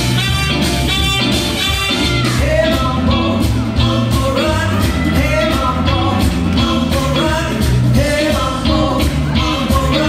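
Upbeat rock-and-roll song with singing and a steady beat, played as jive dance music.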